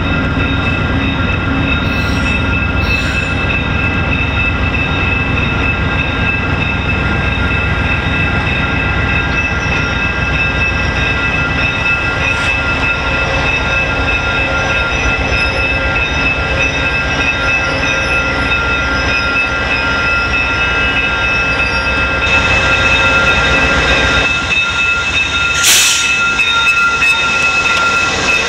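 VIA Rail GE P42DC diesel locomotive and its coaches rolling into a station stop, the engine running under a steady high brake and wheel squeal as the train slows. It gets louder as the locomotive draws alongside about 22 seconds in, with a brief sharp burst of noise near the end.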